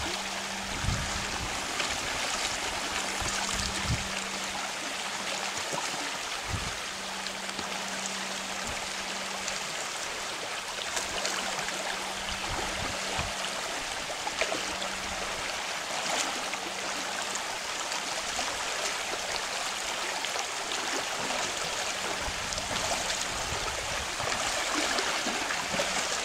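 Steady rushing of river rapids, the Russell River fast water running quickly, with a few brief low thuds in the first several seconds.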